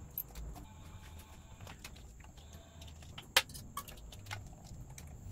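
Scattered small clicks and taps of plastic and metal parts being handled and fitted on a motorcycle's right handlebar throttle and switch housing, with one sharp click about three and a half seconds in.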